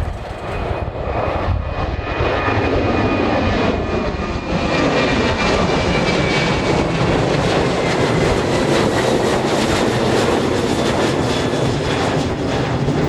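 Jet airliner taking off: the engines at takeoff power give a loud, steady roar with a high whine, building over the first few seconds and then holding as the Boeing 737-800 climbs out.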